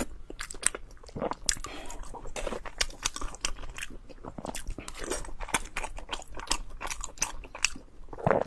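Close-miked eating: a person chewing and biting food, wet mouth sounds broken by quick, irregular crunchy crackles.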